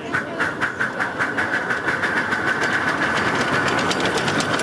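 Ride-on miniature live-steam locomotive chuffing as it pulls away. The exhaust beats quicken from about two to about five a second as it gathers speed, over a steady high tone.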